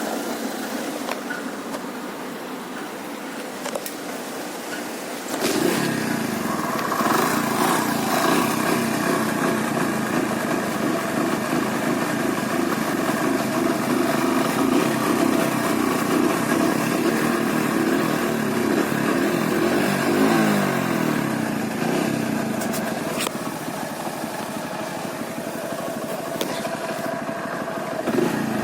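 Hero Honda Joy scooterette's small engine running. It becomes much louder and busier about five seconds in and keeps going steadily, with a dip in pitch about two-thirds of the way through.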